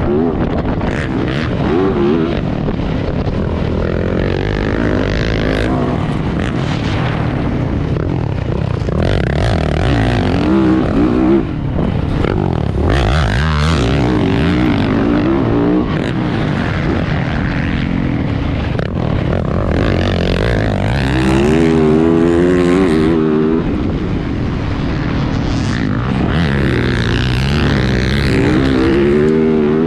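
Motocross dirt bike engine revving up and down again and again as it is ridden round the track, over steady rushing wind noise.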